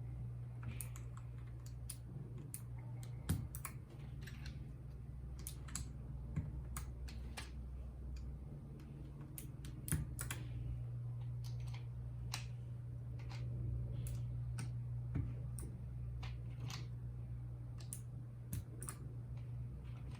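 Keys on a RAKK Lam Ang Pro mechanical keyboard with bronze switches being pressed in irregular clicks, a few a second, over a steady low hum.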